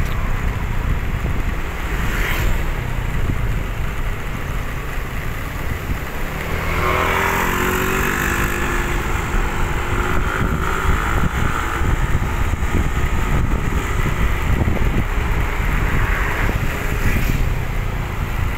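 Steady rumble of wind and road noise from riding along a paved road. A motor vehicle passes about seven to nine seconds in, its engine tone rising out of the noise and fading away.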